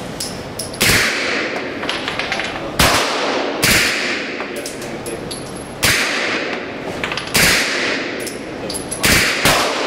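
Submachine gun fired in single shots, about seven at uneven intervals of one to two seconds. Each shot is sharp and rings out in the echo of an indoor range.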